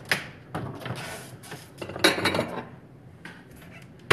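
Dishes clattering and clinking as they are handled, in a string of short knocks. The clatter is loudest about two seconds in, and a sharp knock comes at the very end.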